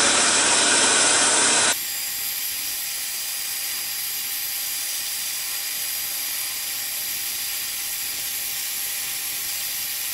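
Hegner scroll saw running steadily with a hiss and a faint constant whine. The sound changes abruptly and drops in level about two seconds in, then holds even.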